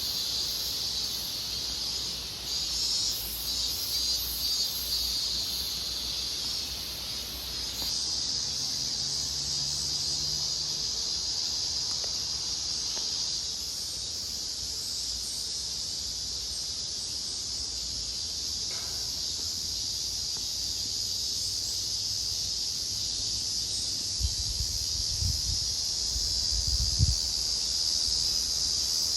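Steady, high-pitched chorus of insects droning in the forest, with a few brief low bumps near the end.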